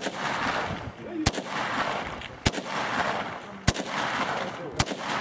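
Carbine fired in single shots, five sharp reports evenly spaced about one and a quarter seconds apart.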